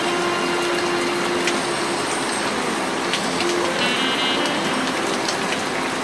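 Steady rain falling on a city, a dense even hiss. Faint background music comes and goes underneath.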